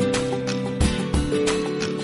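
Background music: held melodic notes over a steady drumbeat.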